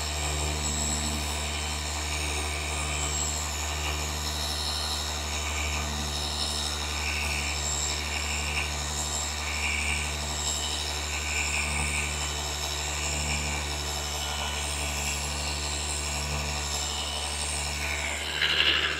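Flex FX3331 24V cordless gear-driven orbital polisher running steadily under hand pressure while polishing car paint with a heavy cut pad: an even, low motor hum.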